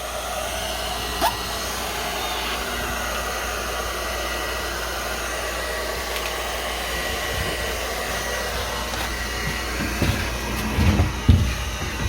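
Blow dryer running steadily at a constant pitch, with a faint whine over the rush of air. It is the heat source for a makeshift box oven. There is a single click about a second in and a few low knocks near the end.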